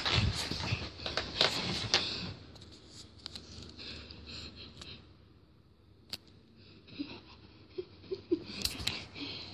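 A pug puppy squirming and mouthing in bedding close up: fabric rustling and small clicks, busiest over the first two seconds, then sparse clicks with a short burst of rustling near the end.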